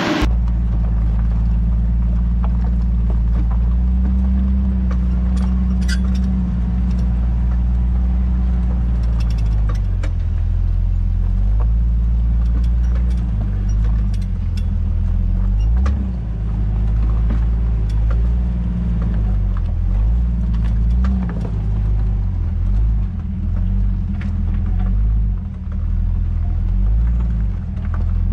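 Jeep engine working at low speed over a rutted off-road trail, its revs rising and falling, with scattered knocks and creaks from the vehicle.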